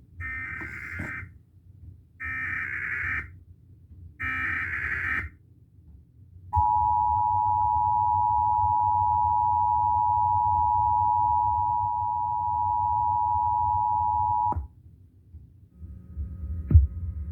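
Emergency Alert System broadcast tones: three one-second bursts of the warbling SAME digital header data, about two seconds apart, followed by the steady two-tone attention signal (853 and 960 Hz) held for about eight seconds, louder than the bursts.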